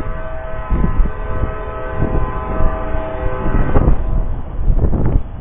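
Locomotive horn sounding a long, steady chord that stops about two-thirds of the way through, over low wind buffeting on the microphone.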